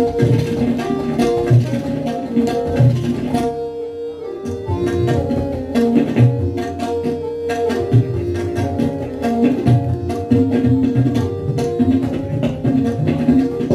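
Tabla duet: two tabla sets played together in fast, dense strokes with deep bass thumps, over a harmonium repeating a nagma (lehra) melody. The drumming drops out for about a second around four seconds in while the harmonium carries on.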